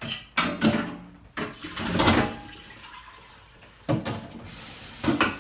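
Potatoes being rinsed in a stainless-steel kitchen sink: a metal bowl knocks against the sink several times with splashing water, then the kitchen tap is turned on and runs steadily near the end.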